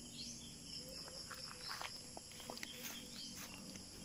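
Faint, steady, high-pitched chorus of insects in the surrounding vegetation, with scattered small clicks and taps.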